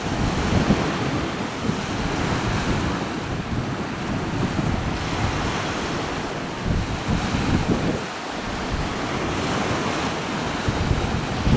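Wind buffeting the microphone in irregular gusts over the wash of river water.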